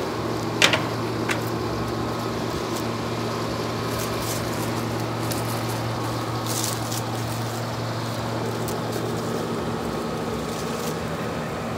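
Late-1960s Westinghouse 23,500 BTU room air conditioner running and cooling: a steady hum under the even rush of its fan.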